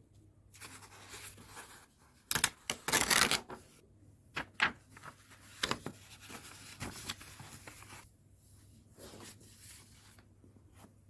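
Rustling and handling noises, loudest in a dense burst about two to three seconds in, followed by a few sharp clicks and taps.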